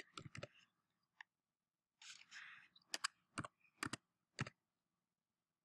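Computer keyboard keystrokes typing a number, about a dozen quiet, irregular clicks: a quick cluster at the start and a few more between three and four and a half seconds in, with a soft hiss about two seconds in.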